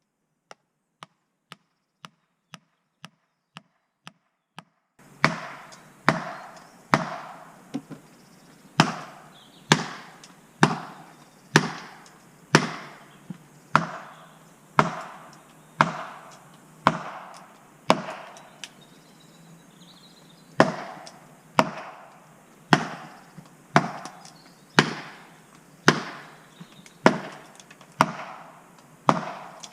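Steady blows driving a felling wedge into the back cut of a tree being felled, about one a second, each sharp with a short ring. Faint at first, much louder from about five seconds in.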